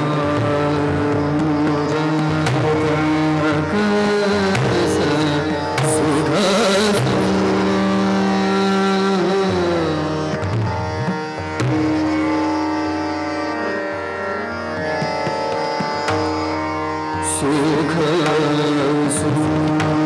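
Hindustani classical khayal singing: a male voice holds long notes and glides slowly between pitches over a steady tanpura drone, with harmonium following the melody and tabla strokes.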